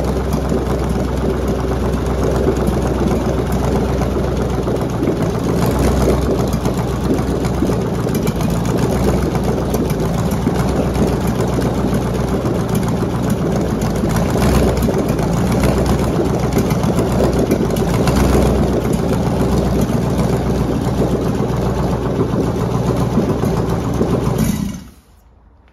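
GM L96 6.0-litre V8 running steadily on an engine stand, wired standalone to an E78 computer, on its first successful start. It shuts off near the end.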